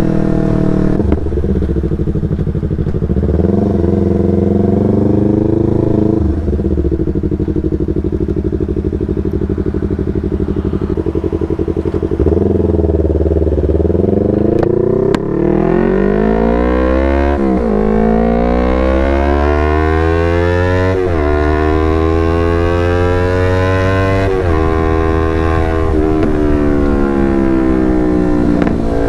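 Yamaha R25 parallel-twin engine through a Proliner TR1R short aftermarket exhaust, ridden on the road. It pulls through the gears: the pitch climbs, then drops sharply at each shift, about six times. In the second half it makes a long rising run up the revs and eases off again.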